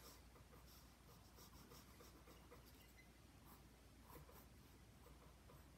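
Faint scratching of a pencil sketching on sketchbook paper, in short separate strokes.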